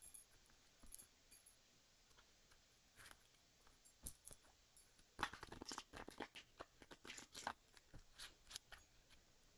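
Tarot cards being handled: scattered soft clicks, then a couple of seconds of rapid crisp card flicks and rustling about halfway through.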